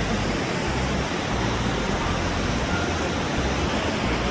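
Steady rush of fast water from Johnston Creek cascading through the canyon just below.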